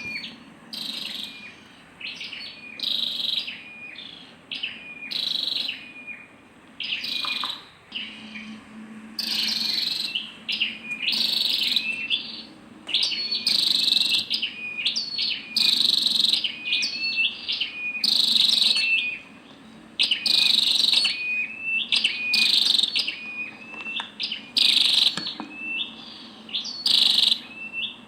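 Female flowerpecker calling: short, high, chirping calls repeated about once a second.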